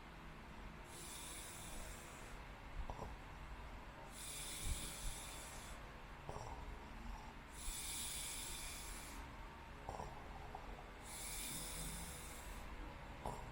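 A sleeping person breathing noisily, on the edge of snoring: four slow, airy breaths, one about every three and a half seconds.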